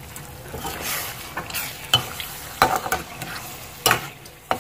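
A spatula stirring chicken, cream and yogurt in a stainless-steel karahi, with sizzling underneath. From about two seconds in there are several sharp scrapes and knocks of the spatula against the pan.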